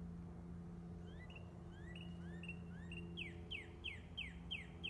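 A songbird singing: from about a second in, a few rising whistled notes, then a quicker run of falling notes, about three a second, which are the loudest part. A steady low hum runs underneath throughout.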